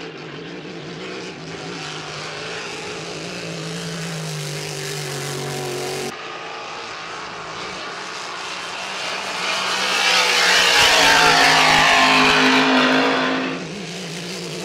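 Grand Prix class hydroplane's V8 engine running flat out on the course, a steady high drone. After a sudden cut about six seconds in, a boat's engine swells to its loudest and rougher as it runs close by, then drops away sharply near the end.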